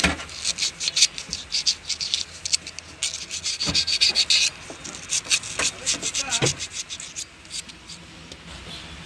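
Emery paper scrubbed back and forth by hand on the metal horn contact ring of a Maruti Suzuki 800 steering hub, in quick scraping strokes. It is cleaning off a carbon build-up that has stopped the horn working. The strokes are fast for the first four or five seconds, then come more sparsely and die away after about seven seconds.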